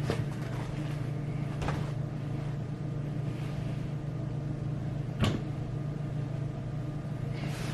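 A steady low hum with three short knocks of things being handled, the loudest about five seconds in.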